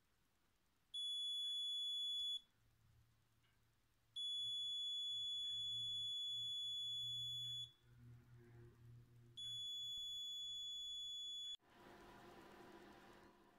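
An electronic buzzer sounding a steady high beep three times, about one and a half, three and a half and two seconds long, each time the mercury tilt switch is tipped and the mercury closes the circuit. Near the end a fainter steady noise takes over.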